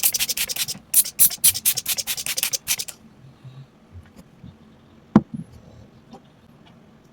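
Quick scratchy scrubbing strokes on a hard object, about five or six a second, which stop about three seconds in; a single sharp click follows a couple of seconds later.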